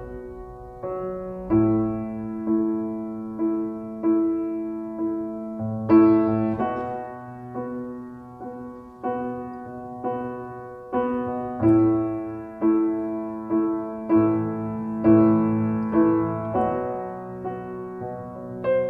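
Slow background piano music, with notes and chords struck about once a second and each left to fade.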